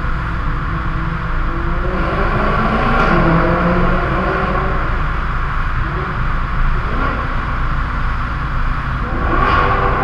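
Maserati GranTurismo S V8 engine and exhaust running at speed through a road tunnel, over steady road and tyre noise, with the engine note rising and swelling louder about three seconds in and again near the end. The tunnel walls make it echo.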